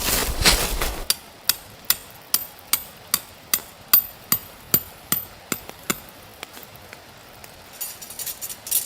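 A steady series of sharp knocks, about a dozen at a little over two a second, as of something being struck repeatedly; they stop about six seconds in. A loud rustling noise comes first, in the opening second.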